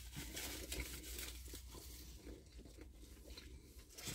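Faint crinkling and rustling of a paper burger wrapper being handled, with a few soft clicks and quiet chewing.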